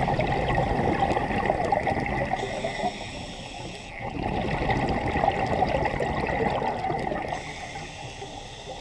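Water noise picked up by a submerged camera: a steady rush of water, dipping quieter for about a second in the middle.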